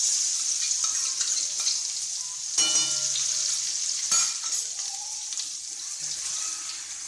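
Garlic paste dropped into hot oil in a kadai, sizzling loudly as soon as it hits, while a spatula stirs it; two sharp knocks come about two and a half and four seconds in.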